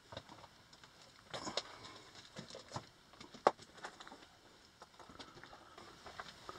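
Footsteps on the dirt-and-rock floor of a narrow mine tunnel: soft, irregular steps and scuffs, with one sharper click about three and a half seconds in.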